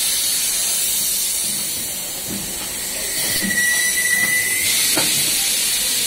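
Compressed air hissing steadily from an air-line chuck held on a car tyre's valve stem. A short high whistle comes in a little past three seconds, and there is a sharp click about five seconds in.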